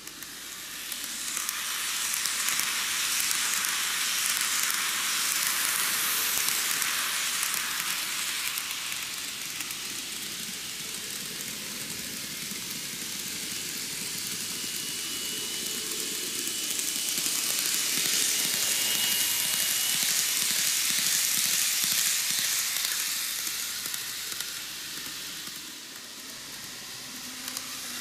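N-gauge model Romancecar trains rolling on cant-rail track: a steady hiss of small metal wheels on the rails. It swells twice as trains come round the curve, with a faint high whine in the middle.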